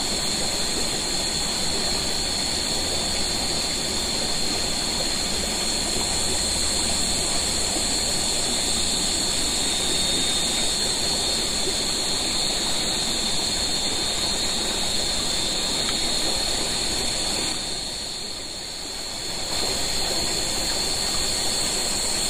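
Steady rush of running water, with a steady high-pitched whine over it; the whole sound dips briefly a few seconds before the end.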